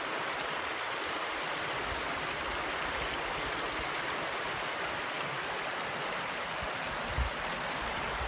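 Shallow, fast-flowing stream rushing steadily over rocks, with a brief low thud about seven seconds in.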